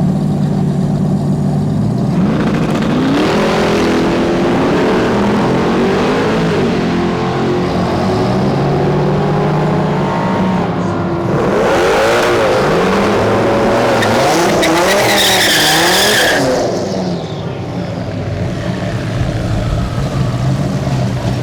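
Performance car engine at a drag strip, idling and then revved up and down repeatedly. The engine is loudest in the middle, with a high squeal about fifteen seconds in that fits tyres spinning, and it settles back toward idle near the end.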